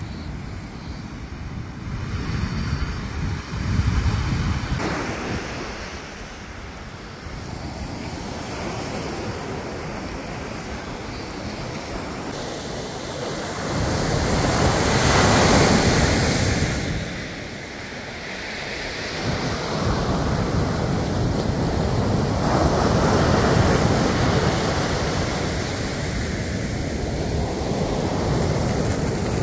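Ocean surf breaking and washing up the beach, the rushing swelling and fading, loudest a little past halfway and again later on. Wind buffets the microphone.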